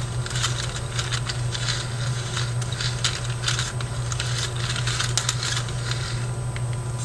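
Light, irregular clicking and ticking from a small RC helicopter being handled, its rotor spun by hand to work fresh oil into the plastic gears, over a steady low hum.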